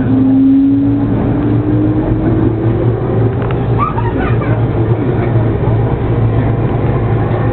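Electric commuter train pulling away and accelerating, heard from inside the car: the traction motors give a whine that rises slowly in pitch over the first few seconds, over a steady low hum and the rumble of the wheels on the rails.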